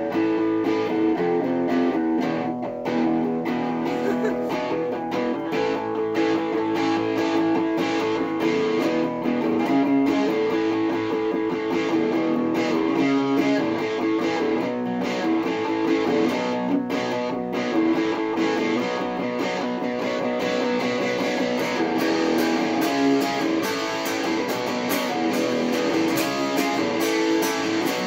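Epiphone ES-333 semi-hollow electric guitar with a Dirty Fingers humbucker, played through a small 15-watt amplifier: chords strummed without a break, changing every second or so.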